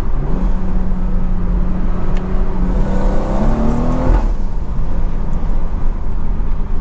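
BMW 340i's Stage 2 tuned B58 turbocharged straight-six with a downpipe, pulling steadily under a constant low rumble. Its engine note holds one pitch, climbs about three and a half seconds in, then cuts off suddenly just after four seconds.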